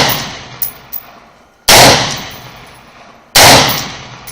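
DPMS AR-15 rifle firing two single shots about a second and a half apart, each loud crack trailing off in an echo, with two light clicks between them near the start.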